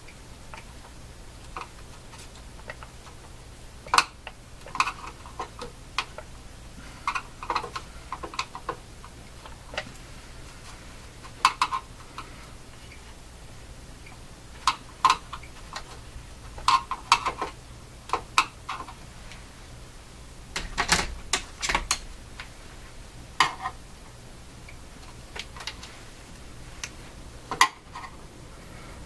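Irregular clicks, taps and light metallic knocks of hand work on a radio chassis while a power cord is being fitted, loudest in a quick cluster past the middle, over a steady low hum.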